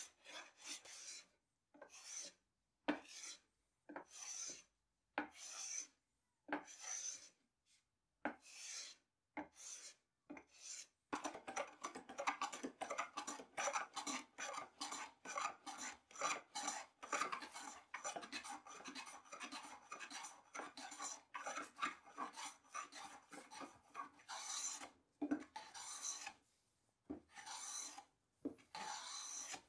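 Hand plane shaving wood: separate strokes with short pauses between them, then from about eleven seconds in a fast run of continuous strokes along a narrow square blank.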